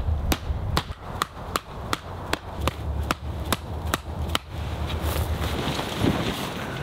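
A run of sharp, evenly spaced knocks or clicks, about two and a half a second, that stops a little over four seconds in, over a low rumble.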